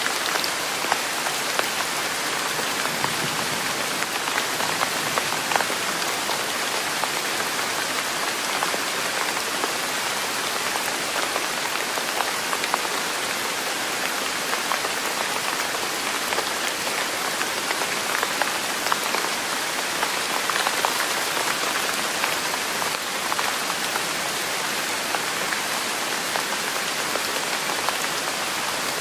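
Steady rain falling on a surface: a constant even hiss dotted with many small drop ticks.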